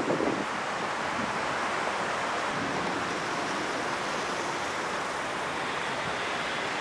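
Steady rushing of shallow stream water, with no distinct splashes.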